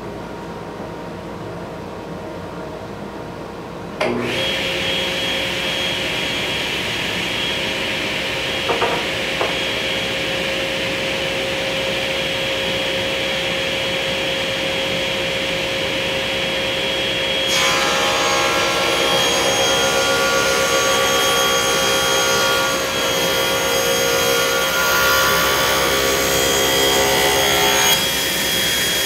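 Table saw ripping a 1-inch-thick maple board with a Forrest Woodworker blade. The saw runs steadily and gets suddenly louder about four seconds in. From about two-thirds through, the blade cutting the wood adds a harsher, higher sound that stops just before the end.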